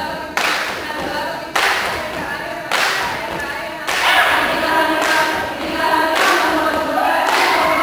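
A Saman dance troupe chanting in unison without instruments, with four sharp group hand strikes about once a second over the first four seconds, after which the voices carry on alone.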